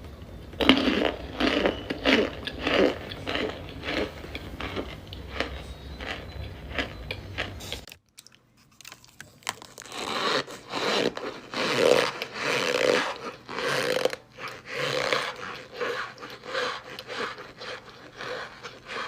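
A person biting and chewing blocks of compressed cornstarch: runs of dry, brittle crunches. The crunching breaks off for a second or two near the middle, then starts again.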